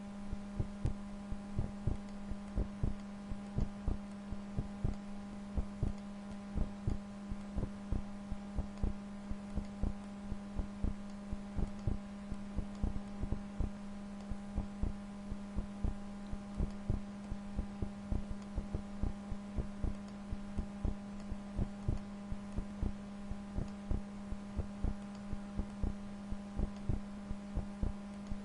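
Steady electrical hum overlaid by a stream of soft, low clicks, a few a second and irregularly spaced: computer mouse clicks placing points while digitizing a letter.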